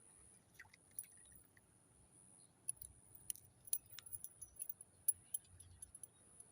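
Faint scattered sharp clicks and small rattles, coming thickest in the second half, over a steady thin high-pitched drone.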